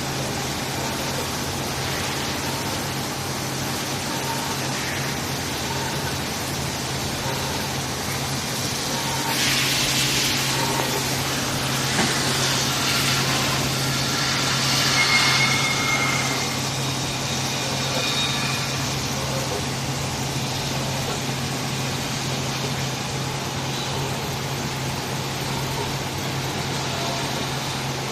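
Factory machinery running with a steady low hum under a constant rushing noise, and a louder stretch of hissing from about nine to sixteen seconds in.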